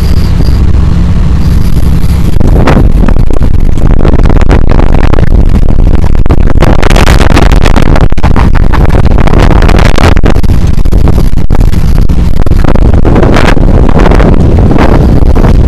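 Loud, gusty wind buffeting the microphone over the steady low rumble of a fishing boat's engine at sea.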